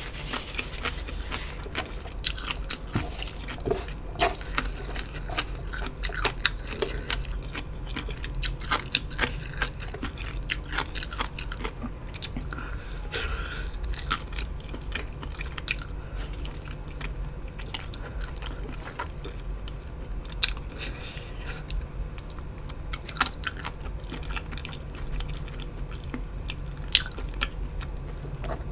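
A person chewing and crunching mouthfuls of a khanom jeen noodle meal with chicken feet and raw vegetables, with many sharp crisp bites.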